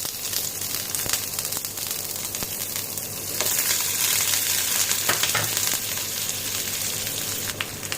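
Chopped onions sizzling steadily in hot oil in a pan, just after being tipped in, the sizzle swelling a little partway through. A few faint clicks of a spatula stirring them.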